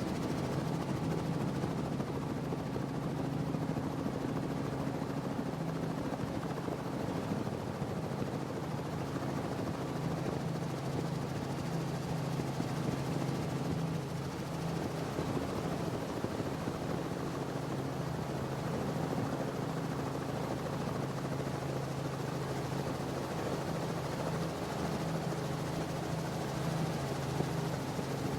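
Steady engine drone under a constant rushing of wind and water noise, unbroken throughout.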